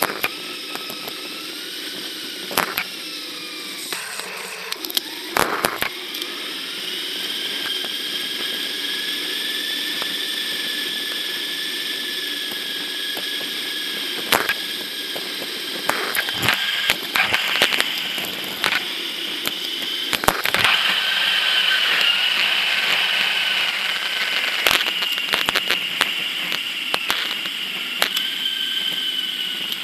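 Mountain bike ride recorded on an action camera and played back eight times faster: the knobby tyres' road noise and the wind become a steady mechanical whine that wavers slightly in pitch. Frequent sharp clicks and knocks, from the bike going over bumps, come thicker in the second half.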